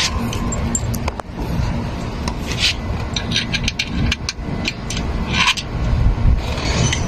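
Scraping, rubbing and light clicks of hand work on a car under repair, over a steady low hum.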